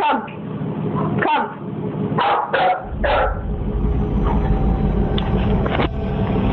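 A dog barking in short single barks, about six spread over several seconds. A steady low hum comes in under the barks about three seconds in.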